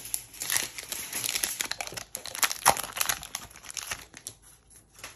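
Foil wrapper of a Pokémon TCG booster pack crinkling and crackling as it is opened by hand. The crackle is densest for the first few seconds, then thins out as the cards come free.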